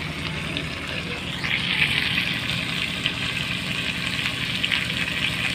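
Masala-coated fish pieces frying in an iron kadhai over a wood-fired mud stove, a steady sizzle that grows louder about a second and a half in.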